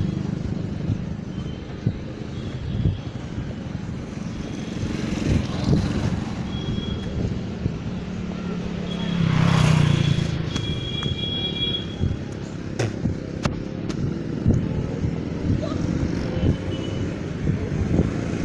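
Motorcycle engine passing close, swelling to its loudest about nine to ten seconds in and then fading, over steady road and traffic noise.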